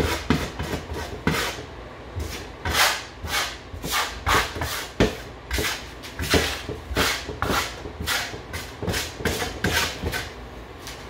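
Broad steel spatula scraping wet concrete-effect plaster across a plywood board. It makes repeated short, irregular strokes, about two a second, as the coating is spread and blended.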